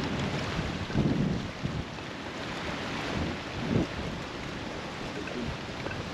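Wind buffeting the microphone: a steady rushing hiss with low rumbling gusts, the strongest about a second in and again near four seconds.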